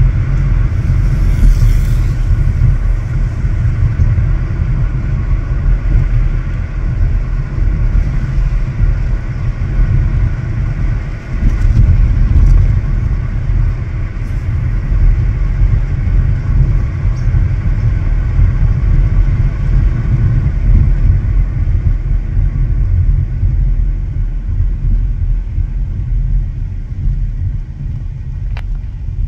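Steady low rumble of road and wind noise from a car driving along a street, uneven in level and easing a little near the end.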